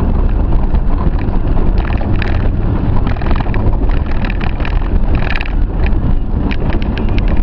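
Off-road vehicle's engine running under load as it climbs a rough trail, with wind buffeting the microphone. Frequent short knocks and rattles come through over the steady rumble.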